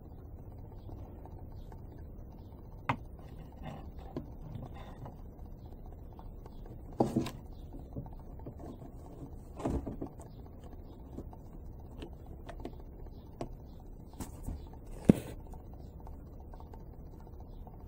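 Small plexiglass gearbox pieces and hand tools handled and set down on a workbench: scattered light clicks and knocks a few seconds apart, the sharpest about fifteen seconds in, over a low steady hum.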